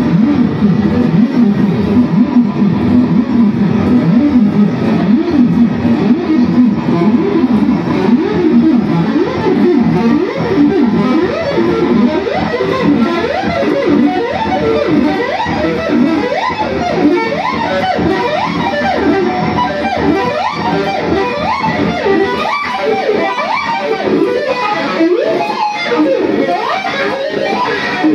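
Electric guitar playing a fast, dense passage of experimental contemporary music. The notes slide quickly up and down in pitch, and the playing climbs into a higher register in the second half.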